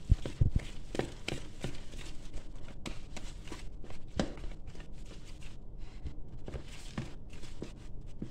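Gloved hand beating a soft gemat batter of flour, yogurt and water in a plastic bowl: a string of irregular slaps and knocks, loudest in the first half-second.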